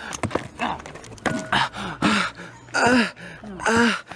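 A person groaning in about four short, strained bursts, roughly one a second, with a few dull knocks near the start.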